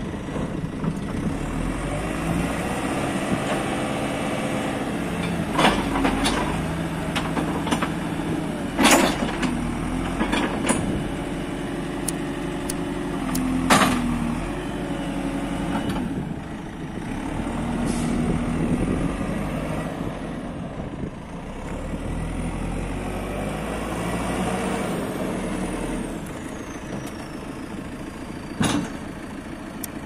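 Diesel engine of a 2012 JCB 4CX backhoe loader running, its speed rising and falling as the machine is manoeuvred. Several sharp clacks or hisses cut through, loudest about nine and fourteen seconds in, with another near the end.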